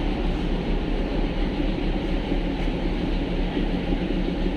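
Darjeeling toy train heard from inside a carriage: a steady rumble with a low, even hum.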